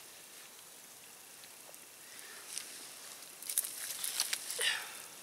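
Quiet outdoor background, then rustling with a run of light cracks and crackles about halfway through, as of brush and sticks being moved through or handled.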